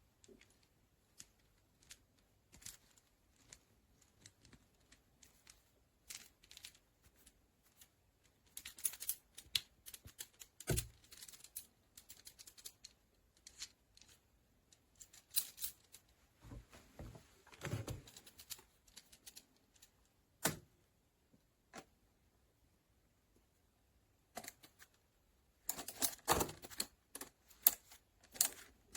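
Irregular clicks, light rattles and a few sharper knocks from the metal parts of a camera clamp and articulating arm being handled, with clusters of quick clicks and some quiet gaps in between.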